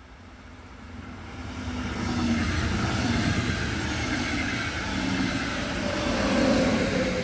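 Double-deck regional push-pull train pushed by a DB class 112 electric locomotive passing close at speed. The rolling noise of wheels on rail swells over the first two seconds and stays loud, with a humming tone as the locomotive goes by near the end.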